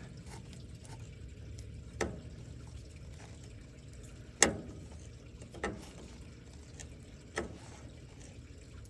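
Hand tools clinking against the metal of a truck steering gear box while a cotter pin is worked loose: four sharp, briefly ringing clinks, the loudest about four and a half seconds in, over a steady low hum.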